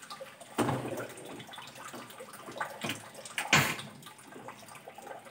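Stainless steel cooking pot set down on a gas stove's grate, with knocks and some water sloshing in it, then the loudest sharp sound about three and a half seconds in as the gas burner is lit.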